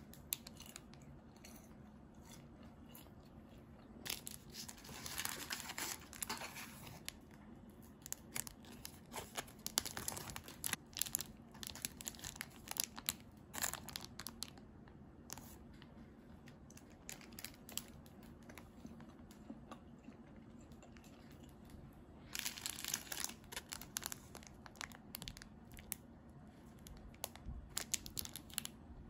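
Thin plastic snack wrappers being torn open and crinkled by hand: irregular crackling and rustling, louder in two stretches, one a few seconds in and one about three-quarters of the way through.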